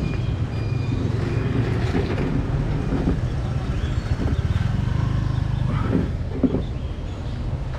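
Steady low rumble of street traffic, mostly motorbikes, with a few short knocks about six seconds in.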